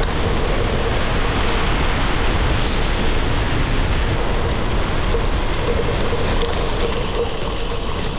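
Gravel bike riding on a dirt and gravel trail: wind rushing over the action camera and the 38 mm Panaracer GravelKing SS tyres rolling, a steady loud rush heaviest in the low end. A faint hum comes and goes under it.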